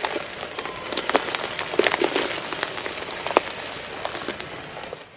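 Candy-coated chocolates cracking and crunching under a car tyre: a dense crackle of many small shells breaking, with sharp louder cracks scattered through it, the loudest a little past halfway.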